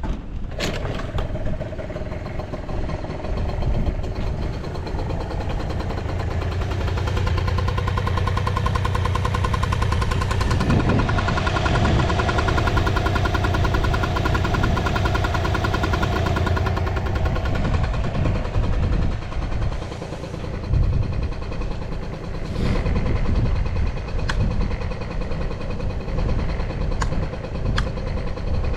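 Honda Super Dio Baja scooter's small two-stroke single-cylinder engine bursting into life and running, revved up and held higher for several seconds partway through, then dropping back to a lower speed. It revs freely with no abnormal noise.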